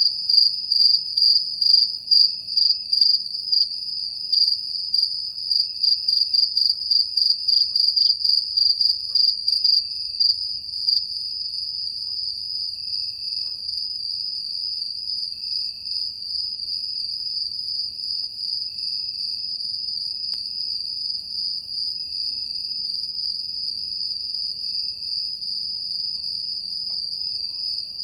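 Crickets chirping in a continuous high trill, with louder pulsed chirps through roughly the first ten seconds that then settle into a smoother steady trill. A fainter insect chirps on and off at a lower pitch.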